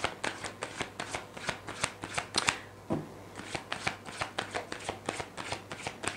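A deck of tarot cards being shuffled overhand by hand: a quick, even run of light card slaps and clicks, about six a second.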